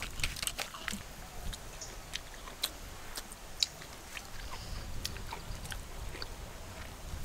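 Biting and chewing grilled paneer tikka off a bamboo skewer: scattered, irregular small mouth clicks.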